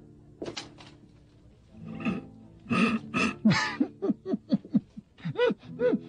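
A man laughing in a run of short, pitched bursts, about three a second, starting a little before halfway and going on to the end.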